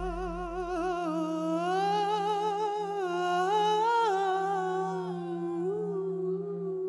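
A male voice sings a long wordless line with wide vibrato and ornamented runs over a steady low backing drone. A deep bass boom dies away in the first second.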